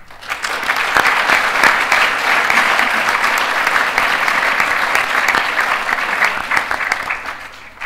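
Audience applauding: many hands clapping in a dense patter that starts at once and fades near the end.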